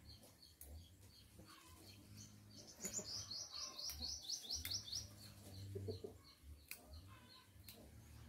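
A small bird singing a rapid, high trill of evenly spaced short notes for about two seconds, starting about three seconds in, with scattered faint chirps, a few sharp clicks and a low steady hum around it.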